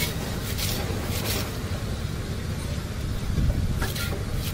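Knife chopping fresh coriander on a wooden board, in short groups of quick strokes, over a steady low rumble of traffic.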